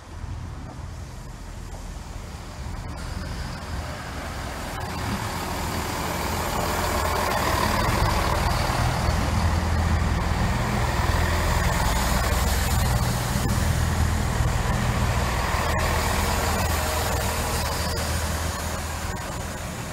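GWR Class 166 Networker Turbo diesel multiple unit running past along the platform, its underfloor diesel engines giving a steady rumble. The sound grows louder as the train draws level, holds for several seconds, then eases slightly near the end.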